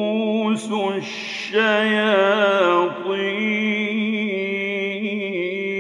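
A male Quran reciter chanting in the slow, melodic mujawwad style. He draws out ornamented notes, pauses briefly about a second in, then holds one long steady note.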